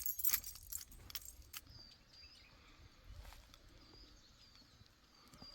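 Quiet outdoor ambience: a few sharp clicks and taps in the first second and a half, then faint short bird chirps every second or so.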